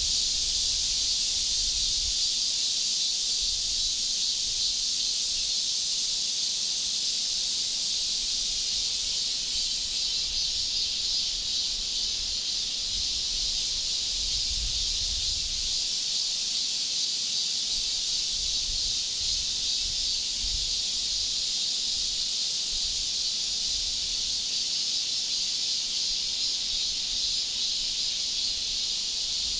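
A steady high-pitched insect chorus outdoors: an even hiss with a faint rapid pulsing, unchanging throughout.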